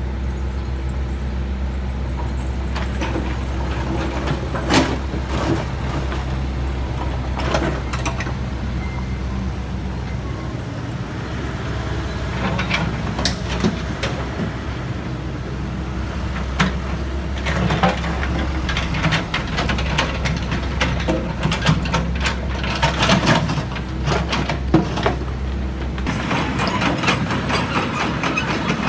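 Heavy diesel construction machinery running steadily, with scattered metallic clanks and knocks. A high-pitched hiss or squeal comes in near the end.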